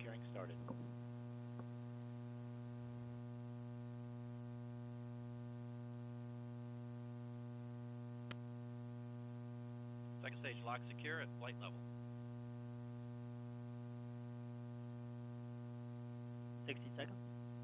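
Steady electrical mains hum on the launch-broadcast audio feed, a buzzy tone with many overtones. Faint, muffled snatches of radio voice come through about ten seconds in and again near the end.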